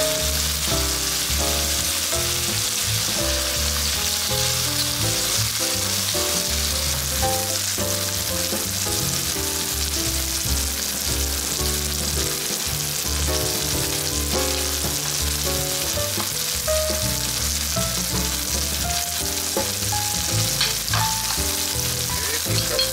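Chicken thigh and sliced garlic sizzling steadily in oil in a frying pan over low heat, with light utensil scrapes against the pan near the end. Soft background music plays underneath.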